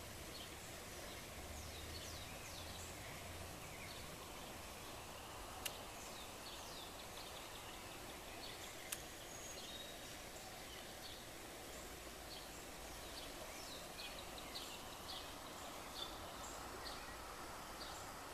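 Faint outdoor background with small birds chirping: many short, high chirps scattered throughout. Two faint clicks come about six and nine seconds in.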